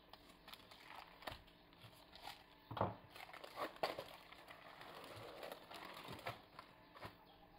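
Baking parchment being peeled off a baked sponge cake sheet: faint paper crinkling and rustling, with a few louder crackles about three to four seconds in.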